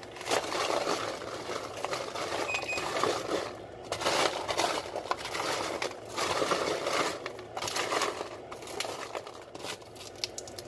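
Crisping sugar-and-butter-coated popcorn being stirred in aluminium foil baking pans: a dry crunching, crackling rustle of the stiff kernels against each other and the foil, in uneven bursts with short pauses. The crunch is the sign the coating is baking crisp.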